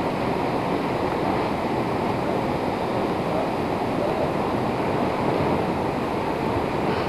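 Steady rushing outdoor ambience of wind and the roar of a city spread out below, even throughout with no distinct events.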